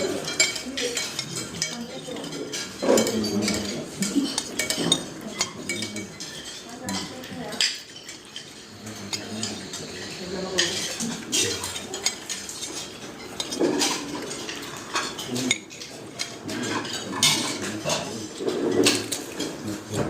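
Cutlery clinking and scraping on plates and bowls during a meal at a table: irregular small clinks, taps and scrapes throughout, with faint background murmur.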